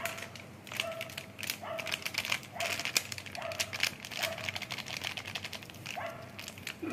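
Crinkling and rustling of a plastic spice packet, with a run of light clicks, as turmeric powder is tipped into a steel mixer-grinder jar. A short pitched call repeats in the background about once a second.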